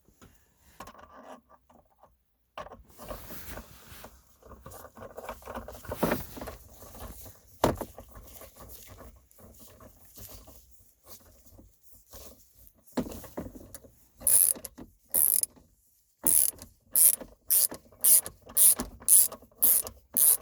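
Bolts being driven in with a hand ratchet: scattered clicks and knocks of parts and tool handling, then, in the last third, a steady run of ratchet strokes, about two a second.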